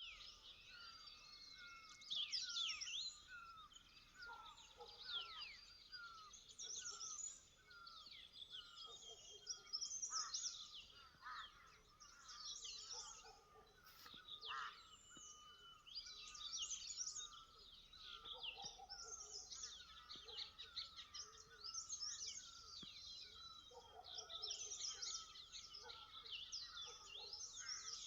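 Several garden birds chirping and singing at once, many short overlapping chirps and trills. Through the first half one bird repeats a short call at a steady pace, over a little more than one call a second.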